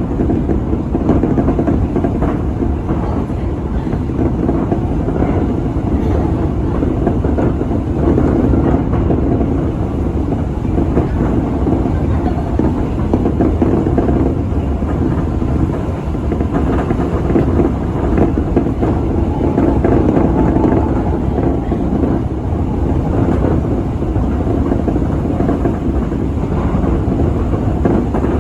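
Tobu Railway electric commuter train running along the line, a steady rolling and running noise from the front of the car that swells and eases gently.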